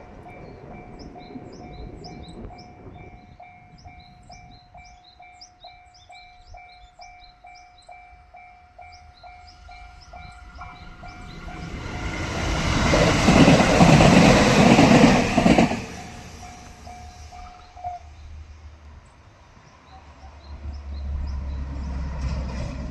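A Japanese railway level-crossing warning bell rings steadily at about two dings a second. About halfway through, a JR Tōkaidō Line local electric train passes over the crossing, and its wheels and motors are loud for about four seconds. The bell stops a couple of seconds after the train clears, and a low rumble builds near the end.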